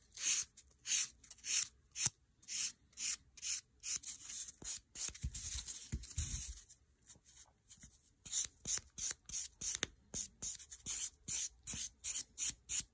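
Diamond nail buffer rubbed back and forth over a thumbnail, its 220-grit side smoothing the nail after the hard gel has been filed off: a steady run of short scratchy strokes, about two a second, with a brief pause a little past the middle.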